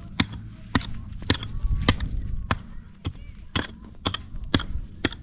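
Repeated sharp knocks, about two a second, like blows of a hammer or a chopping tool, over a low steady hum.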